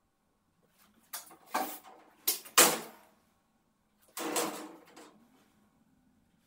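A few knocks and clatters of metal workpieces and tools being handled, spread over a few seconds, the last one dying away over about a second.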